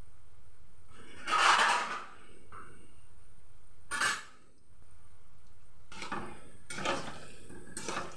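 A metal spatula scraping and clinking against a steel wok while palm-fruit fritters are turned in hot oil, over a steady low sizzle of deep frying. The loudest scrape comes about a second in, another about four seconds in, and a few shorter clinks follow near the end.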